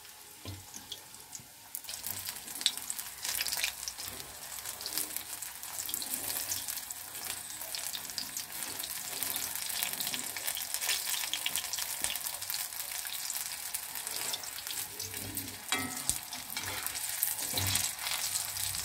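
Soya-chunk pakoras deep-frying in hot oil: a steady crackling sizzle that grows louder about two seconds in. Near the end a slotted metal spoon stirs them in the pan, adding a few clicks.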